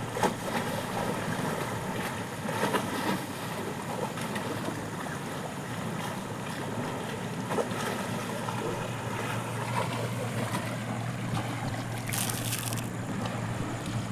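Canal water flowing, a continuous rushing noise. A low steady hum joins in past the middle.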